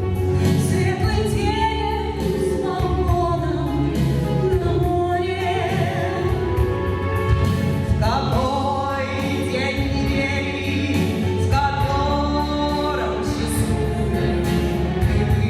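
A woman singing a slow lyrical song over instrumental accompaniment, holding long notes.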